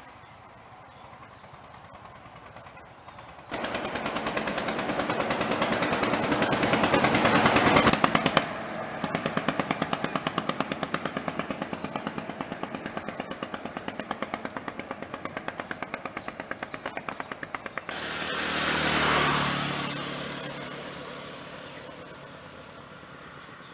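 An engine running with a fast, even beat of several pulses a second; it starts suddenly about three and a half seconds in, grows louder, then drops back a little after about eight seconds. Near the end a second engine sound swells up and fades away over about three seconds, as a vehicle passing by does.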